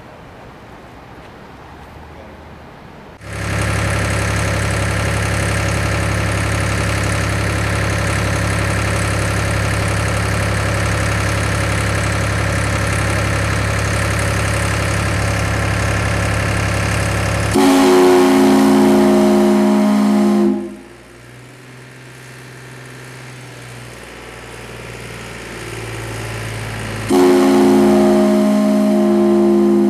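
Brass steam whistle sounding to signal the start of a moment of silence: a long, steady multi-tone blast of about fourteen seconds, then two shorter, louder blasts of about three seconds each with a deeper chord.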